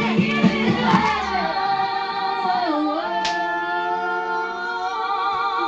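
A song with a female lead vocal is playing. A steady beat runs for about the first second and a half, then drops out, and the singer holds a long wavering note that dips briefly about halfway through.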